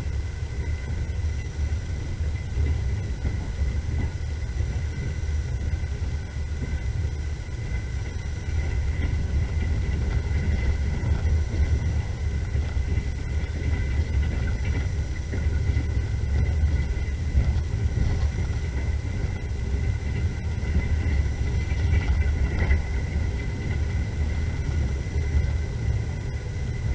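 Passenger train running, heard from inside the carriage: a steady low rumble with a faint, steady high whine above it.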